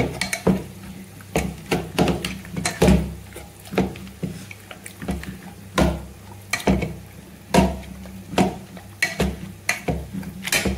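Hand-held metal potato masher pushed again and again into soft boiled vegetables in a pressure cooker pot, making repeated dull thumps, irregular, about two or three a second. This is the mashing of boiled vegetables for pav bhaji bhaji.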